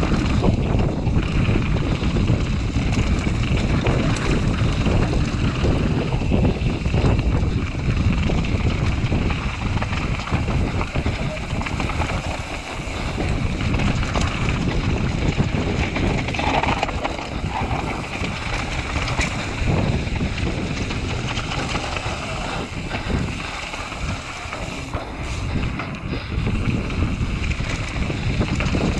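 Wind buffeting the microphone and the steady rumble and rattle of a mountain bike running fast down a bike-park trail.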